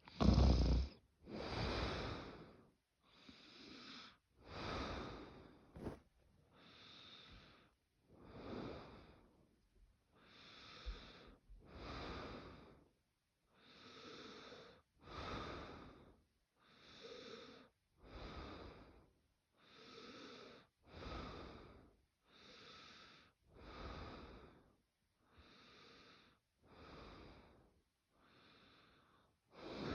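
Quiet snoring: soft breaths in and out, evenly paced at about one every second and a half, the first one the loudest.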